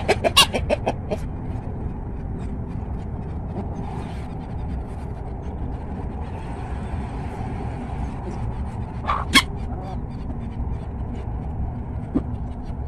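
A flock of chickens foraging, with a quick run of clucking calls right at the start and one sharp call about nine seconds in, over a steady low rumble.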